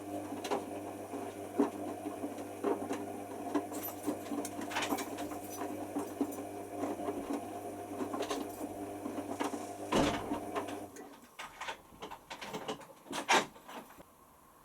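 Hoover Nextra washer dryer tumbling a half load slowly in the soak phase of a wash: a steady motor hum with scattered clicks and knocks from the drum. The hum stops about eleven seconds in as the drum pauses, and a few knocks follow.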